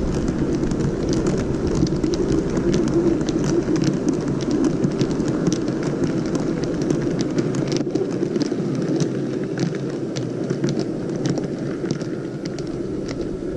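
A model V100 diesel locomotive running along the track: a steady hum from its motor and running gear, with many small clicks from the wheels on the rails, easing slightly near the end.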